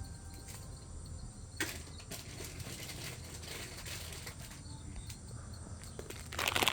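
Steady low outdoor background hum with a few faint scattered clicks, then a bag crinkling loudly near the end as it is handled.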